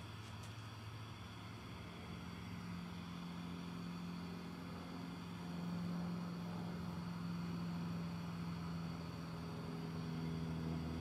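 Steady hiss of a lampworking bench torch flame, with a low machine hum beneath it.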